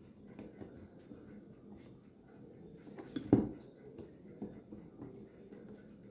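Faint clicks and rubbing of the brass parts of a Seikosha 8-day clock movement as a part is worked loose by hand, with one sharper metallic knock about halfway through.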